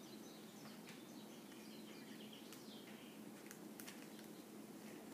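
Near silence: room tone with a faint steady hum, a few soft clicks and faint high chirps.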